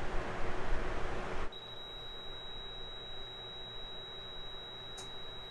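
Loud rushing noise, then about a second and a half in a steady high-pitched beep from a Fluke clamp meter's continuity tester, held while the probes touch the grinder armature's commutator, signalling a closed circuit. A short click comes near the end.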